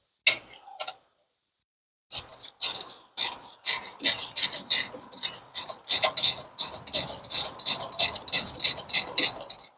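Hand ratchet wrench clicking as it is swung back and forth on a bolt under the car, a quick even run of pawl clicks, about four or five a second. Two single clicks come first, then the steady run starts about two seconds in.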